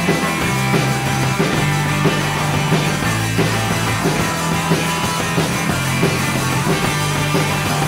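Rock band playing an instrumental passage live, electric guitars, bass and drums at a steady beat, between sung verses.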